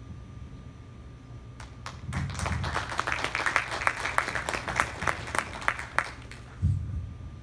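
Small audience applauding, the clapping starting about two seconds in and dying away about six seconds in, followed by a single low thump near the end.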